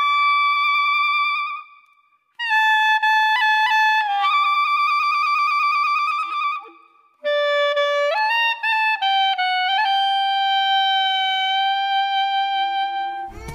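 Background music: a solo reedy wind-instrument melody played in three phrases, with short breaks about two seconds and seven seconds in.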